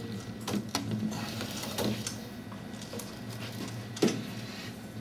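Stepper motors of a robotic table-soccer goalkeeper buzzing as it moves along its rail, with a ball rolling on the chipboard table. A few clicks and knocks; the loudest, a sharp knock about four seconds in, comes as the ball reaches the goalkeeper.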